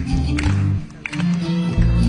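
Acoustic bass guitar playing a bass line over an orchestral backing track of a Colombian festive dance medley, with sharp percussion strokes. The music drops out briefly a little under a second in, then the band and bass come back in together.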